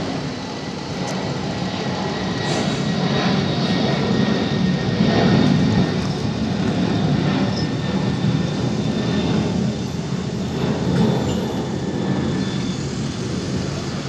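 Jet noise of a Boeing 767-300F freighter's twin turbofan engines passing overhead: a steady low rush that swells to its loudest about five seconds in, then slowly eases off.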